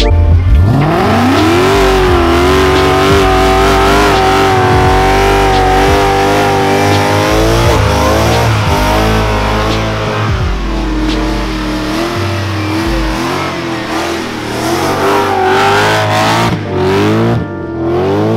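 Mercedes-Benz C63 AMG Black Series 6.2-litre V8 revving up over about two seconds, then held at high revs during a burnout. The pitch wavers, dips a few times and climbs again near the end.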